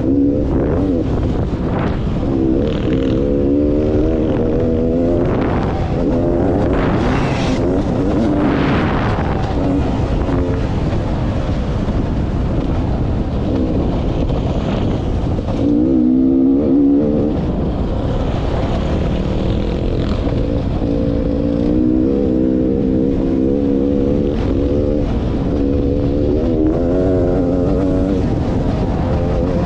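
2016 Beta 300RR two-stroke dirt bike engine running under riding load, its pitch rising and falling with the throttle. Heavy wind rush over the microphone underneath.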